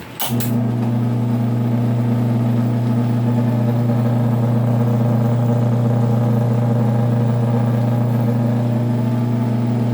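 Push-button-switched relay clicks in, and an electric motor starts and runs with a steady, loud hum.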